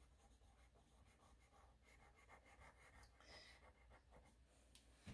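Faint scratching of a graphite pencil on paper, many short strokes one after another.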